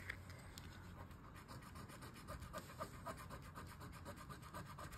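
A coin scratching the coating off a paper lottery scratch card, faint and quick, in even back-and-forth strokes.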